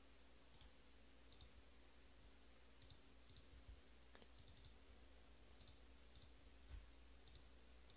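Near silence: room tone with a low hum and a few faint, scattered clicks.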